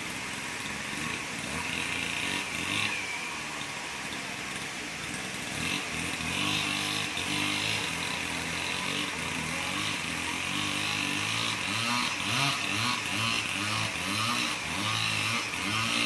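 Small petrol engine running, its pitch rising and falling again and again as it revs, more often in the second half.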